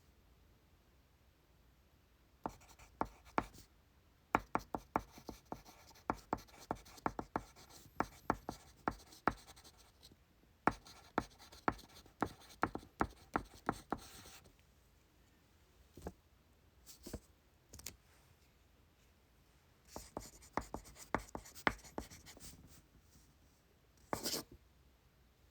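Pencil writing on paper: quick scratchy strokes and taps in bursts. There is a long dense run, then a few scattered strokes and another short run, with one brief scratchy burst near the end.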